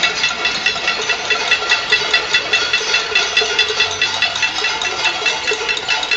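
Cacerolazo: many people banging pots and pans at once, a dense, continuous metallic clatter with ringing tones.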